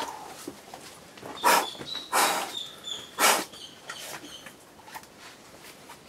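A boulderer's three sharp, forceful exhalations as he pulls through hard moves on an overhanging problem, about a second apart, with faint thin high-pitched tones in between.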